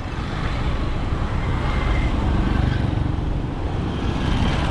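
Steady engine and road noise of a Chevrolet S10 pickup being driven, a low rumble throughout.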